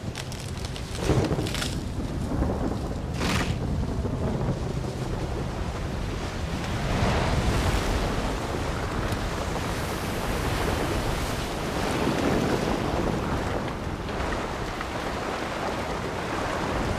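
Heavy tropical rainstorm with rushing water: a dense, steady downpour that swells louder twice, with a few short sharp cracks in the first few seconds.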